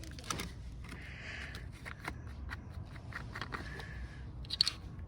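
Scattered clicks, taps and rustling as parts are handled at the oil-fill opening, with a sharper double click near the end, over a steady low background rumble.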